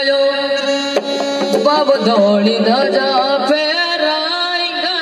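Live Rajasthani devotional bhajan music over loudspeakers: a steady held harmonium drone with scattered hand-drum strokes, and a singer's wavering, gliding melody coming in about two seconds in.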